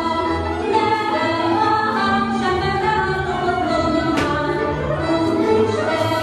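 Hungarian folk music for Bodrogköz dances: women singing a melody over instrumental accompaniment, with one sharp knock about four seconds in.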